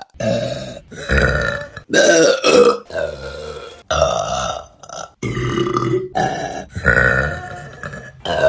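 Women burping loudly, about seven burps one after another, each starting and stopping abruptly as separate clips are cut together.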